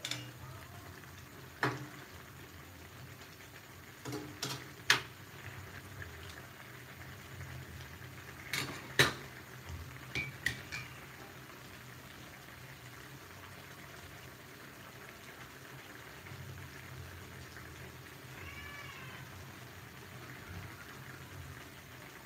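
A metal ladle clinks and knocks against a steel wok of simmering chicken curry, a handful of sharp strikes in the first eleven seconds, over a low steady hum. Near the end there is a faint short call that rises and falls in pitch.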